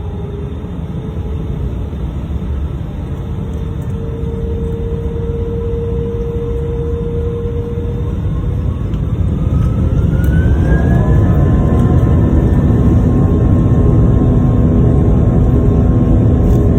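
Airbus A319 jet engines running at low power over a heavy rumble, then spooling up with a rising whine about ten seconds in and settling into a louder, steady run with several whining tones: thrust coming up for the takeoff roll.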